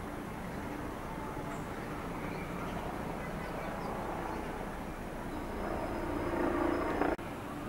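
Steady rumble of distant vehicle traffic. It swells about five and a half seconds in, then cuts off suddenly.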